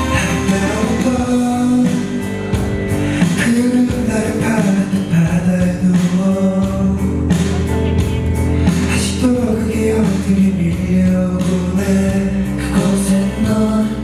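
Male singer performing a pop song live into a microphone, backed by a live band that includes an electric bass guitar.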